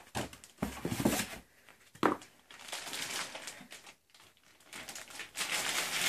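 Plastic wrapping crinkling and rustling in irregular spells as a laptop is unwrapped and handled, with a couple of sharper knocks about one and two seconds in.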